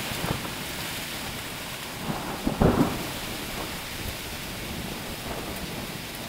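Hail and rain coming down in a steady hiss, with hailstones striking in sharp ticks. A flurry of louder hits comes about two and a half seconds in.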